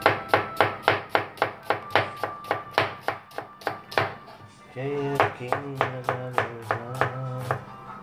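Knife chopping food on a cutting board in quick, even strokes, about five a second, pausing briefly about four seconds in and then resuming with background music under it.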